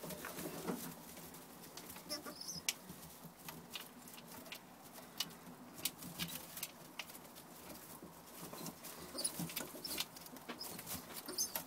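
Young Birmingham roller pigeons moving about on straw: scattered clicks and rustles from their feet and the bedding, with a few short high squeaks.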